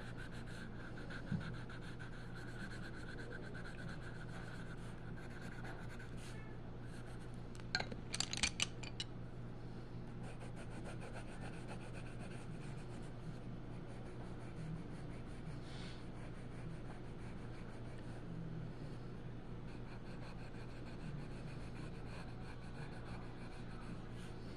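Coloured pencil rubbing and scratching on the paper of a colouring book as a picture is shaded in, over a steady low hum. A short cluster of clicks comes about eight seconds in.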